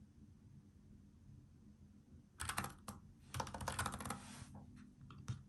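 Typing on a NuPhy Air75 low-profile mechanical keyboard with brown tactile switches: after about two seconds of quiet, quick runs of keystroke clatter start, with a short break between them and a few single keystrokes near the end.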